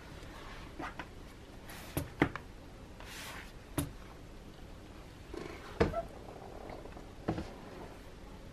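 Handling of a Filofax personal-size croc leather ring planner: a series of short knocks and clicks as it is turned, opened and handled on the table and its metal rings are touched, with a brief rustle about three seconds in.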